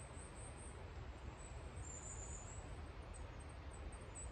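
Faint, steady woodland outdoor ambience: a low rumble and soft hiss, with a thin high note about two seconds in.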